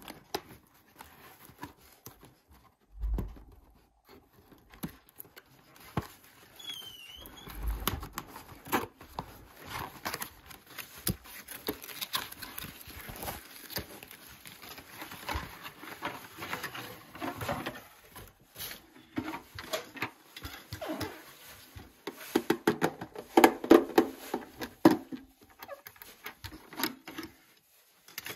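Cardboard packaging being opened by hand: flaps and a card insert rustling, scraping and clicking, with a couple of dull thumps early on. A few seconds before the end comes a louder stretch of scraping and knocking as the plastic toy washing machine is worked out of its cardboard insert.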